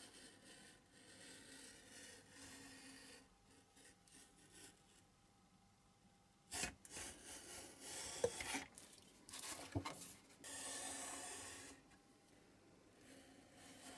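Craft knife blade scraping and cutting through printed paper card on a cutting mat, in short scratchy strokes. There is a sharp click about halfway through, and the cutting is louder in the second half.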